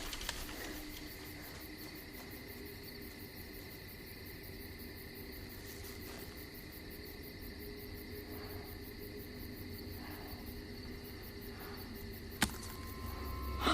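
Faint steady night ambience of crickets chirping, with a single sharp click near the end.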